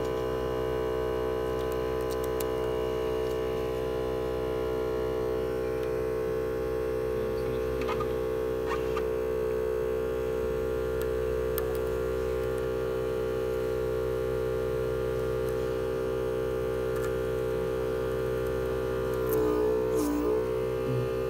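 Background music: a sustained droning chord held steady, its pitch wavering briefly near the end, with a couple of faint clicks about eight seconds in.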